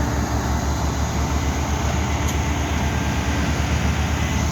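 Heavy diesel equipment engine running steadily under load, a low, evenly pulsing rumble.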